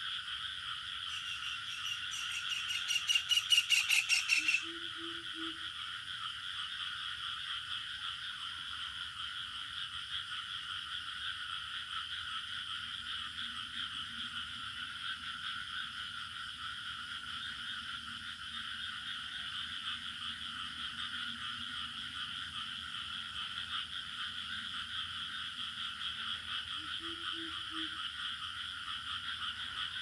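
Evening chorus of frogs and crickets, a steady, dense shrill drone. From about one to four and a half seconds in, one loud nearby call pulses rapidly over it, and two short low croaks come once early on and once near the end.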